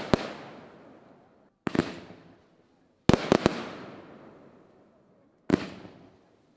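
Fireworks display: aerial shells bursting with sharp bangs, single or in quick twos and threes, every one to two seconds. Each bang trails off in a rolling echo.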